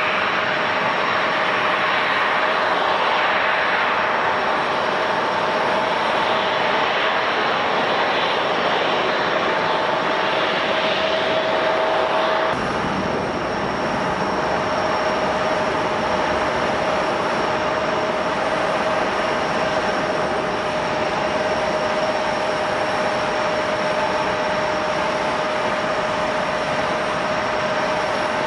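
Airliner engines running with a steady noise and a constant whine. The sound changes abruptly about twelve seconds in and becomes deeper.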